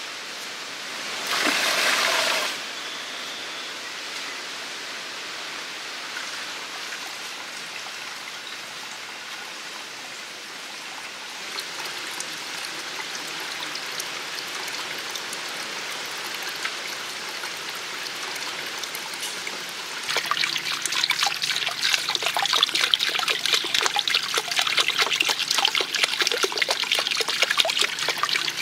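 Water trickling and splashing, growing louder and more splashy about twenty seconds in, with a short rushing noise near the start.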